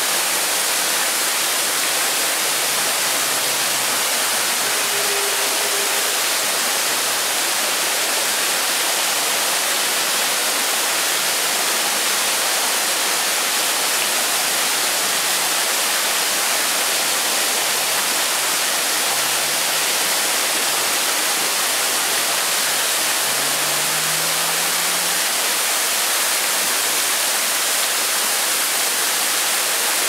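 Steady rush of the Bigăr waterfall: water spilling over a moss-covered rock face into a pool, an even, unbroken hiss.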